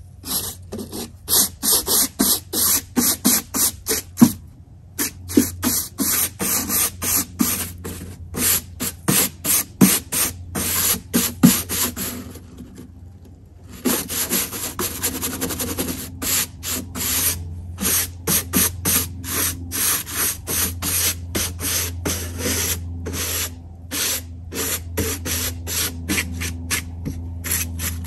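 A hand tool rubbed back and forth over the weathered top plank of an old wooden bench, scraping it down: quick rasping strokes, about two to three a second, with a pause of about a second and a half just past the middle.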